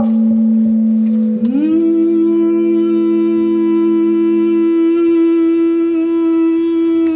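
Music: a sustained drone note rich in overtones that slides up to a higher pitch about a second and a half in, holds steady, and cuts off abruptly near the end.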